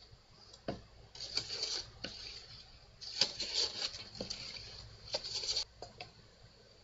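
Hand plane strokes on a wooden bench leg: three hissing passes, about a second in, about three seconds in and about five seconds in, each starting with a sharp knock as the plane takes hold, the third one short.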